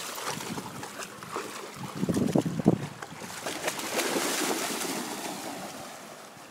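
Two golden retrievers running and splashing through shallow river water close to the microphone. The splashing is loudest about two seconds in, a rush of spray follows around four seconds, and it dies down near the end.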